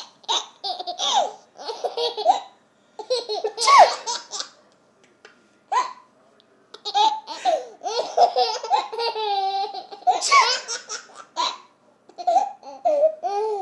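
A baby laughing at sneezes in repeated bursts with short pauses, including one long, drawn-out laugh about nine seconds in.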